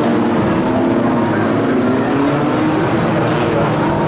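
Renault Twingo Twin'Cup race cars running at speed on a wet track, several engine notes overlapping, easing down in pitch early on and then holding steady, over a hiss of tyres on water.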